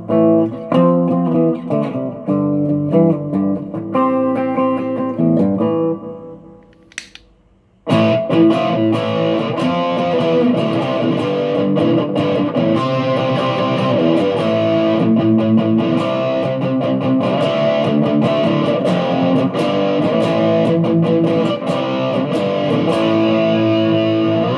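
Electric guitar played clean with the overdrive pedal bypassed, the notes dying away about six seconds in. After a short click and a brief pause, the playing resumes about eight seconds in through a NUX Plexi Crunch overdrive pedal with its gain set low, giving a fuller, brighter crunch tone.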